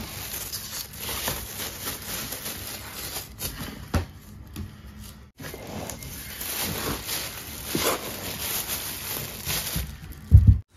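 Clear plastic wrapping crinkling and rustling as it is handled and pulled about, with a short knock about four seconds in and a louder low thump near the end.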